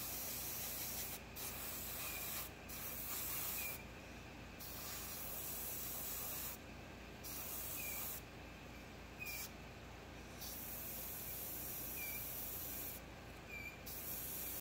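Badger Patriot 105 airbrush spraying primer on compressed air at 15 psi: a hiss that starts and stops in bursts of one to two seconds as the trigger is worked. About six short high squeaks from a 3D printer come through behind it.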